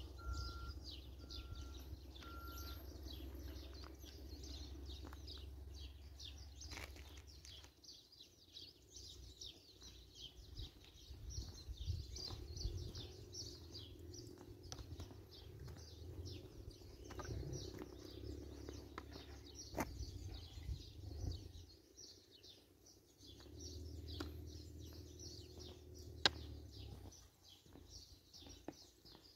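Birds chirping and twittering in the background, with wind buffeting the microphone in patches.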